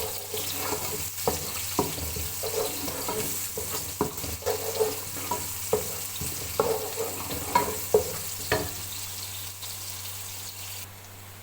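Chopped onions sizzling in hot oil in a saucepan while they are stirred, with irregular knocks and scrapes of the utensil against the pan. The knocks stop and the sizzle quietens near the end.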